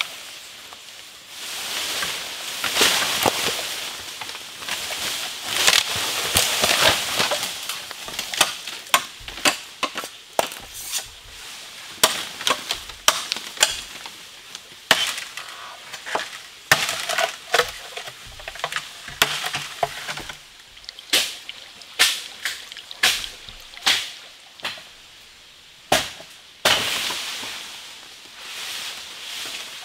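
Irregular sharp knocks and clicks, in quick runs at times, over a rustling hiss.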